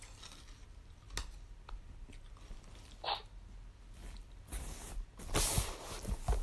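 Close-up eating sounds: a couple of light clicks of a metal spoon on the plate, then wet chewing of a mouthful of rice and fried chicken, loudest in the last couple of seconds.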